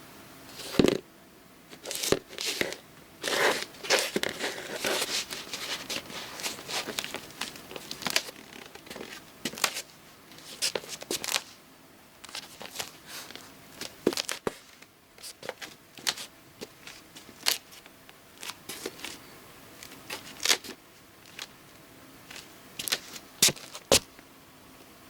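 Irregular crinkling and scraping handling noises close to the microphone, with sharp clicks scattered throughout, the loudest about a second in and near the end.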